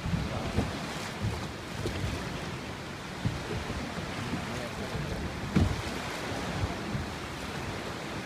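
Sea water sloshing and lapping around a small boat beside a cliff, with wind rumbling on the microphone and a few low thumps, the loudest about two thirds of the way through.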